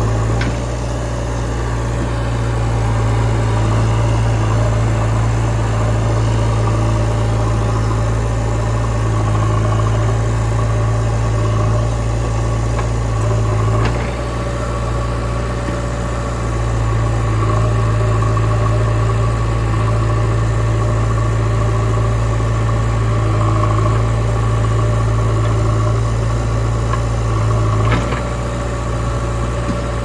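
Diesel engines of a JCB 3DX backhoe loader and a Mahindra 475 DI tractor running steadily, with a strong low hum that dips briefly about a second in, around the middle and near the end.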